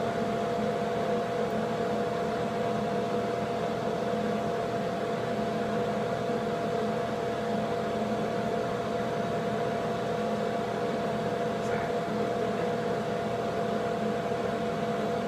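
Bathroom exhaust fan running with a steady hum over a constant whooshing hiss.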